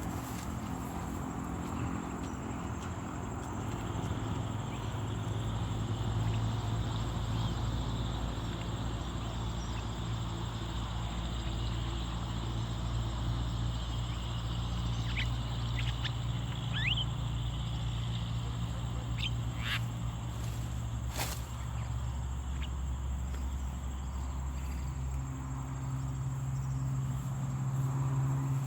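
Outdoor field ambience: a steady low hum and a steady high insect-like buzz, with a few short rising bird chirps around the middle and a single sharp click a little after them.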